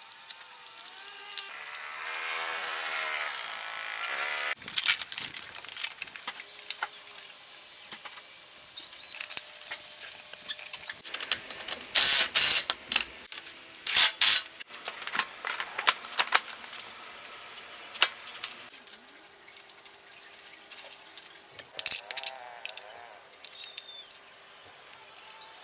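Clinks, clicks and knocks of hand tools and metal parts being handled, with two loud short rushing noises about halfway through.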